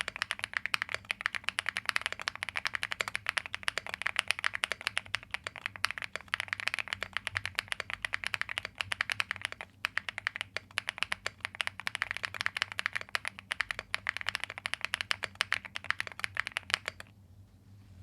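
Fast, continuous typing on a mechanical keyboard fitted with factory-lubed Angry Miao Icy Silver Pro switches: a dense stream of keystroke clacks. There is a short pause about ten seconds in, and the typing stops about a second before the end.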